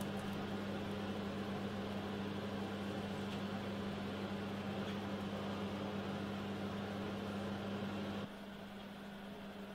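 Steady electrical hum with a low drone and hiss. It drops off suddenly about eight seconds in, leaving a fainter hiss.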